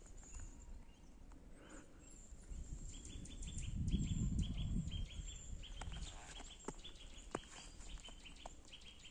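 Small songbirds calling in a winter forest: a rapid series of short, high repeated notes runs from about three seconds in to the end. A brief low rumble on the microphone around four seconds in is the loudest sound, and a few faint clicks follow.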